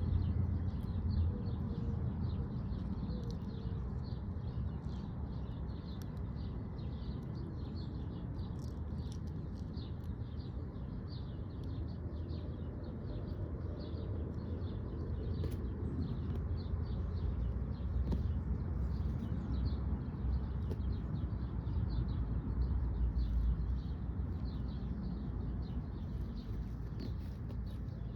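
Birds chirping: many short, quick calls repeating all the way through, over a steady low rumble.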